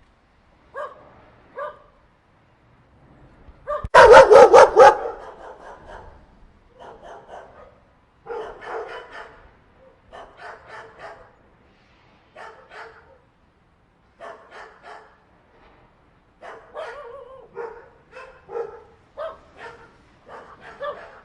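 A group of dogs barking in irregular bursts. A loud run of rapid barks comes about four seconds in, and quieter barks follow on and off.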